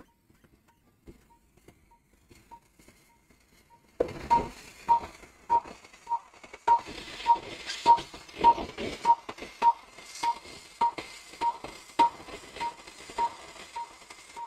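Patient monitor beeping with the pulse, an even short beep of one pitch a little under twice a second. The beeps are faint at first and louder from about four seconds in, where irregular clicks and clatter join them.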